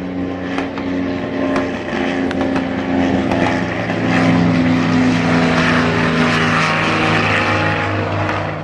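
A propeller aircraft's engine running steadily, its hiss swelling louder around the middle and easing slightly near the end.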